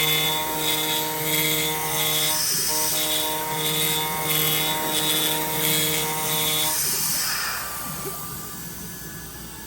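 CNC router spindle running and cutting plastic, a steady whine with a regular pulsing about every 0.7 seconds as the cutter works. The cutting sound stops about seven seconds in, leaving a quieter hum.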